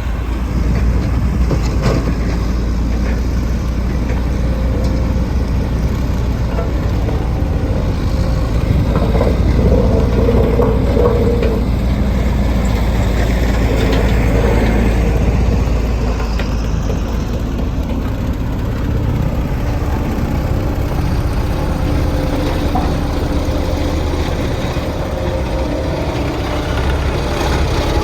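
Diesel engines of compact earthmoving machinery (a tracked skid steer and a compactor roller) running steadily under work, a continuous deep rumble.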